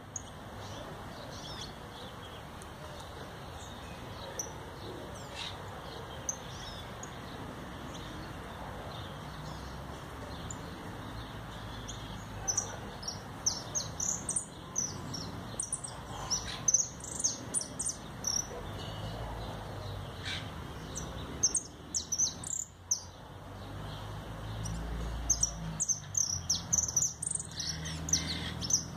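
Caged jilguero singing in bursts of high, rapid chirps and trills, sparse at first and coming thick and fast from about halfway through.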